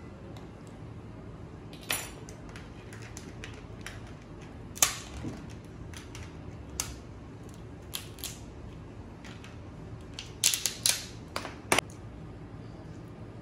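Scattered sharp clicks and cracks of crab shell being broken and picked apart with a metal crab cracker and pick. There is one loud crack about five seconds in and a quick run of cracks near the end.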